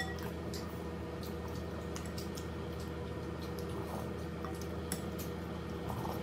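Eating sounds: a metal fork clinks sharply against a glass bowl of noodle soup at the start, followed by scattered light utensil taps. Soft slurps of broth from a plastic spoon come about four seconds in and again near the end, over a steady low hum.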